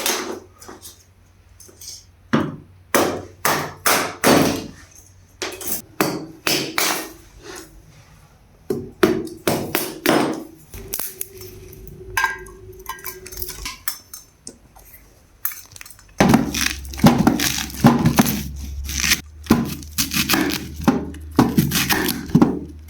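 Damp firewood being chopped: repeated sharp wooden knocks at an irregular pace, coming thicker and faster in the last several seconds over a low steady hum.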